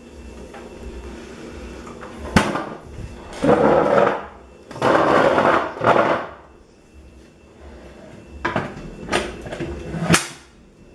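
Handling noise: a sharp knock, then stools being shifted over a tile floor, then a few clicks and knocks as a wall-mounted folding table's wooden top is raised and its hinged metal brackets lock open.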